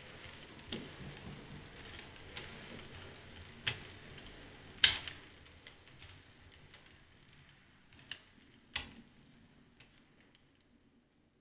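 OO gauge model train running along the layout track: a faint steady hum from the rolling stock, with irregular clicks as the wheels cross the rail joints, the loudest about five seconds in. The sound fades away as the train runs off, dying out near the end.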